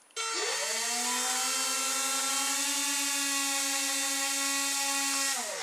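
Twin small electric motors from a toy RC helicopter, driving 2.5-inch plastic propellers, spin up to a steady high whine. They hold it for about five seconds, then wind down near the end.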